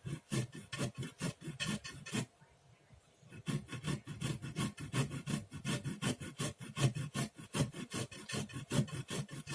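Peeled fresh ginger root being grated by hand on a grater: a steady run of rasping strokes, about five a second. The strokes pause for about a second just after the two-second mark, then carry on.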